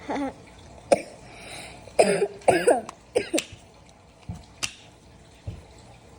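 Short coughs and throat-clearing sounds from a person, bunched in the first three seconds, with a few sharp clicks in between and after.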